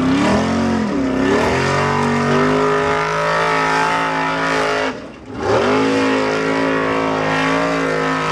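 Formula Offroad hill-climb buggy's engine revving hard under full throttle, pitch rising and falling as the tyres claw up a steep dirt slope. The engine drops off briefly about five seconds in, then revs back up.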